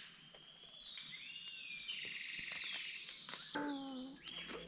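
Rainforest birds calling: several whistled notes that sweep down and up, with a steady high-pitched hum underneath. A brief lower call comes in near the end.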